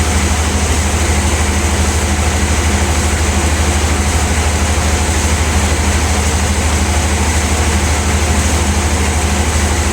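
Large sawmill band saw running steadily, with a deep, even hum and a constant mechanical whir over it.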